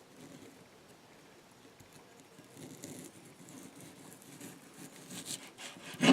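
Bark River Gameskeeper knife slicing thin shavings off a partly frozen chicken breast: faint scraping of the blade through the meat from about two and a half seconds in, then a sharp knock near the end.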